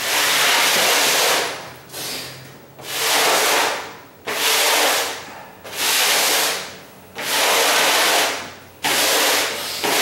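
Broom bristles scraping across a bare wooden subfloor in long sweeping strokes, about one every second and a half.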